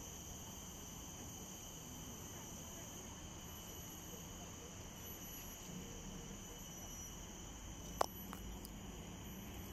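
Steady insect chorus of several constant high-pitched trills over faint background noise, with a single sharp click about eight seconds in.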